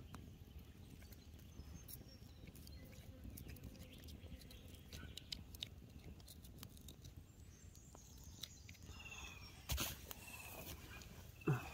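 Small wood campfire crackling softly, with scattered faint pops and clicks, and two louder knocks near the end.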